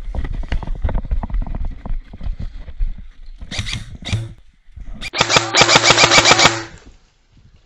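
Running footsteps through grass with gear rattling. About five seconds in, an airsoft electric rifle fires a full-auto burst of about a second and a half: rapid evenly spaced shots over the whir of the gearbox motor.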